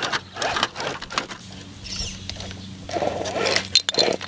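Axial RR10 Bomber RC rock crawler knocking and scraping against rock as it tumbles back onto its wheels after a rollover: a run of sharp clicks and knocks, over a low steady hum.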